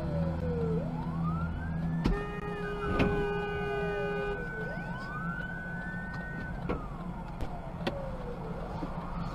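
Emergency vehicle siren wailing in slow rising and falling sweeps, with a steady horn-like blast of about two seconds near the start and a sharp knock about three seconds in.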